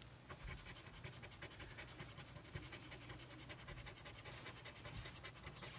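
A coin scratching the latex coating off a scratch-off lottery ticket, in quick, even strokes of several a second, faint.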